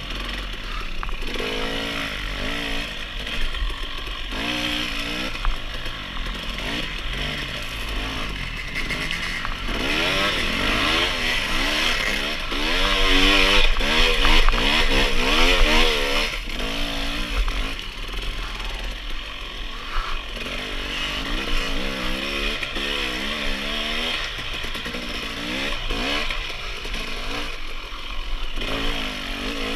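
Dirt bike engine revving as it is ridden off-road, its pitch climbing and dropping over and over with the throttle. It is loudest and highest-revving from about ten to sixteen seconds in.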